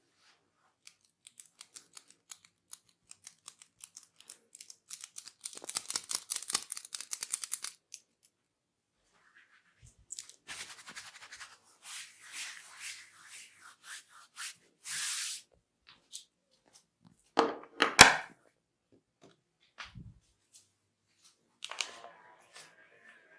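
Hair cracking during a head massage: rapid crackling clicks as tufts of hair are worked between the fingers, building to a dense crackle, then rubbing on hair and scalp. Two loud sharp sounds come about eighteen seconds in.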